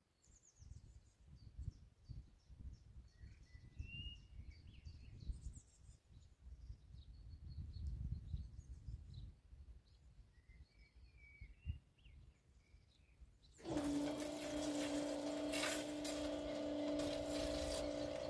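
Gusty wind rumble with birds chirping. About three-quarters of the way through, the level crossing's full-barrier drives start suddenly with a loud, steady hum as the booms lower.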